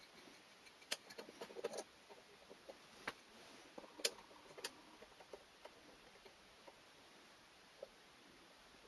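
Faint, scattered light clicks and taps of small objects being handled, a cluster in the first couple of seconds and the sharpest about four seconds in, then dying away to near silence.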